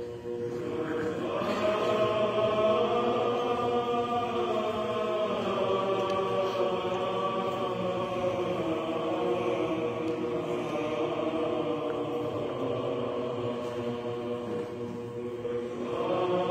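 Orthodox liturgical chanting by a choir, sung in long held phrases; a new phrase enters about a second in and another near the end.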